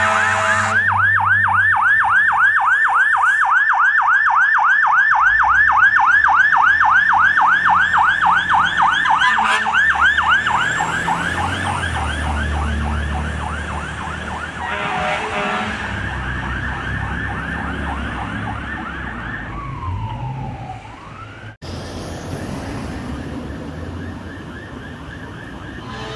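Fire engine siren on a fast yelp, about four rises and falls a second, with the truck's engine rumbling underneath. Near the end of the siren the tone drops away in a falling sweep, and after that only the engine and road noise remain.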